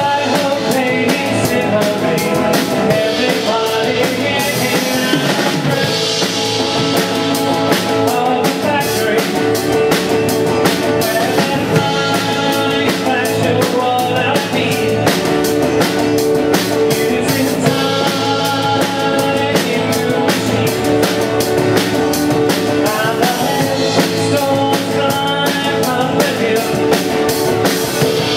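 Live band playing: strummed guitars and a drum kit keeping a steady beat, without a break.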